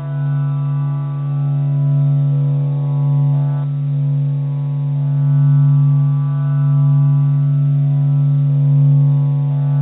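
A steady, low droning tone with a rich stack of overtones that slowly swells and eases in loudness: a meditation drone billed as the sound of the sun.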